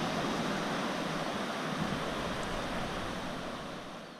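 Atlantic surf washing on a beach with wind noise, a steady rushing that fades away near the end.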